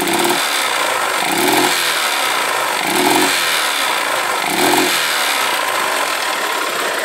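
Honda CG Titan 150's single-cylinder four-stroke engine running, the throttle opened four times about every one and a half seconds. Each time the engine stumbles and fails to pick up cleanly: a misfire under acceleration.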